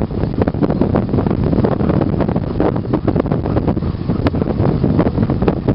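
Wind buffeting the microphone over the steady rumble and rattle of a training ATV moving behind a sled-dog team on a rough dirt trail.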